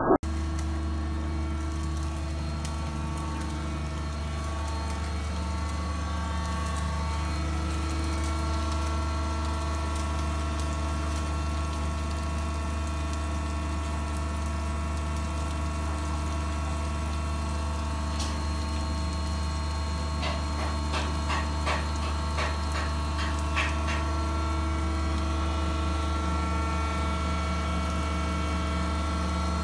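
Electric motor and hydraulic power pack of a tunnelling drill jumbo running with a steady hum, the boom not drilling. A brief knock right at the start, and a short run of rapid clicks about two-thirds of the way through.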